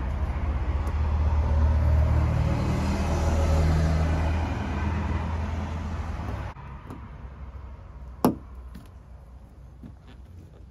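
Low, steady motor-vehicle rumble that cuts off suddenly about six and a half seconds in, followed by a single sharp click.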